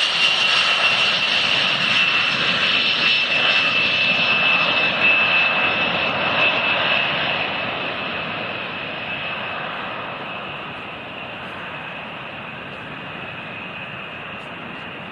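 Military cargo plane's engines running, with a high whine over a rushing noise; the whine sinks slightly in pitch and the sound fades gradually over the second half, as the aircraft moves away.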